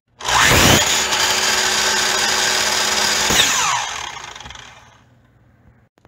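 Electric miter saw starting up with a rising whine, running at speed while its blade cuts a corner off a wooden block, then switched off about three and a half seconds in and winding down with a falling whine.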